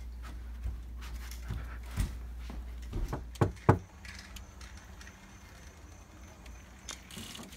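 Scattered thuds and bumps over a low steady hum, with three sharp thuds close together about three seconds in; after that the hum drops away and it goes quieter.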